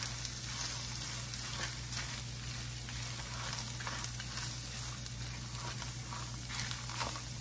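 Frozen corn kernels and sliced jalapeños sizzling in hot olive oil in a skillet, stirred with a wooden spoon that scrapes the pan now and then.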